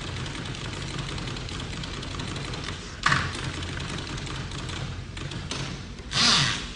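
Typewriter: one sharp clack about three seconds in and a short rasping sweep near the end, over a steady low hum.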